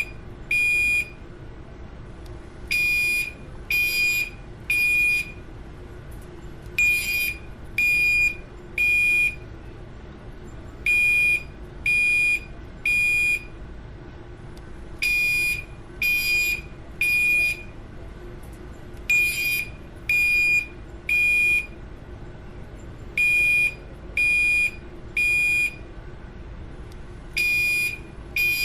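Fire alarm sounder beeping in the temporal-three evacuation pattern: three high-pitched beeps about half a second long and a second apart, then a pause, the group repeating about every four seconds.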